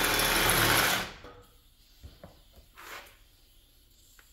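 Electric drill running steadily while drilling a hole, winding down about a second in; after it, a few light knocks.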